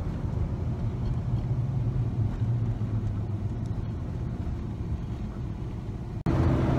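Car cabin noise while driving: a steady low engine hum and road rumble inside the car. About six seconds in it cuts abruptly to a louder stretch of road noise.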